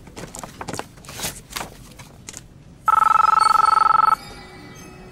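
A Nokia 8110 mobile phone ringing: one burst of a fast-trilling electronic ring on two pitches, about three seconds in and lasting just over a second. Before it, soft rustling and small clicks of paper being handled.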